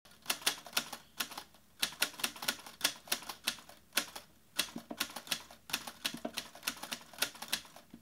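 Typing on a keyboard: rapid, sharp key clicks in several runs separated by short pauses.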